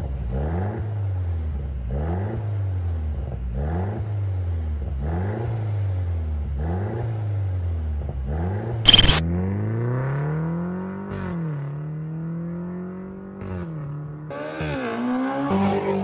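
A 2019 Mercedes-Benz C300's turbocharged four-cylinder engine through an Armytrix full exhaust, revved repeatedly at a standstill: about six quick blips that rise and fall in pitch. A single sharp crack comes about nine seconds in. Then the engine pulls up to a higher, held note as the car accelerates, easing off and holding again near the end.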